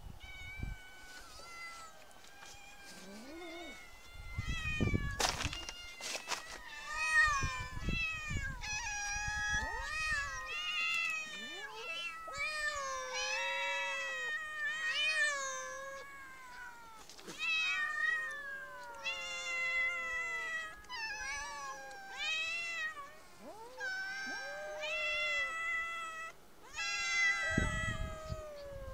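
A group of stray cats meowing over one another, sparse at first, then many overlapping meows almost without a break. A few low rumbles and a sharp click stand out near five seconds and again near the end.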